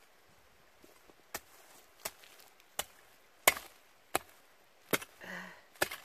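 Short hand tool chopping into brambly ground and roots: seven sharp strikes at a steady pace, about two-thirds of a second apart, the fourth the loudest. A short grunt comes just before the last strike.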